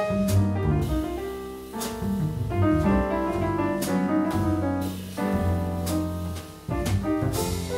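Live jazz played on piano and double bass, the piano playing chords and runs over sustained bass notes, with no horn playing.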